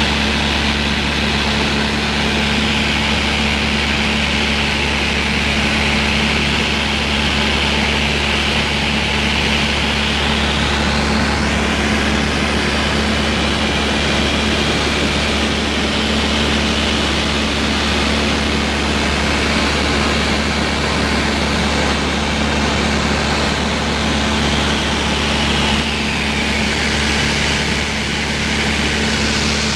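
Cessna 152's four-cylinder Lycoming engine and propeller droning steadily in flight, heard inside the cabin, with a steady hiss of air rushing past.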